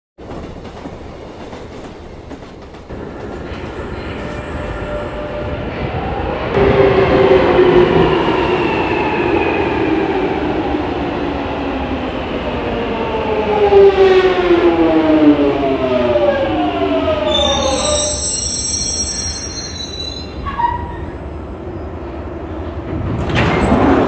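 London Underground Jubilee line train (1996 Stock) slowing down: its motor whine is joined by a louder surge about six seconds in and then falls steadily in pitch for about ten seconds. Brief high-pitched squealing follows as it nears a stop, then a sudden loud thump near the end.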